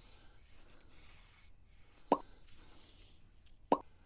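Two short, loud cartoon-style pops about a second and a half apart: the click sound effects of an on-screen subscribe-button animation. A faint hiss comes and goes between them.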